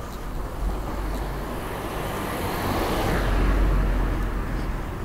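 A car passing by on the street: its tyre and engine noise swells to a peak about three and a half seconds in, then fades.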